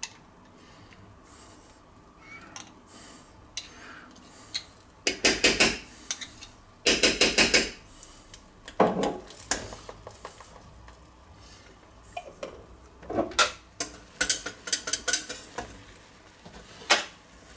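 Wire whisk clattering against the sides of a stainless steel saucepan in several short bursts of quick strokes, beating mustard into a cream sauce. A few single metal clinks fall in between.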